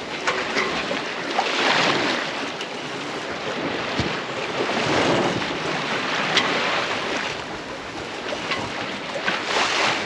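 Sea rushing past a sailing yacht's hull under way, swelling and easing every few seconds with the waves, with wind on the microphone and a few light knocks.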